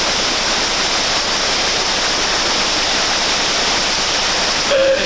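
Steady rushing of river whitewater rapids.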